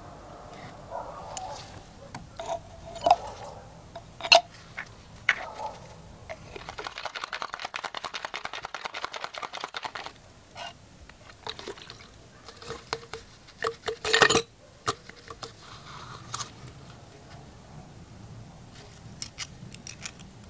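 Plastic cups, a bottle and its cap being handled during chemical silvering: scattered light clicks and knocks, a few seconds of liquid being poured in the middle, and one louder knock about two-thirds of the way through.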